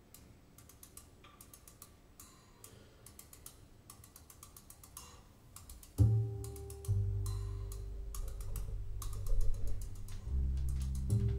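Jazz piano trio recording playing through Living Voice Avatar II floorstanding speakers driven by a single-ended EL84 valve amplifier. It opens with soft, quiet drum ticks in a steady rhythm, then deep double-bass notes come in loudly about six seconds in.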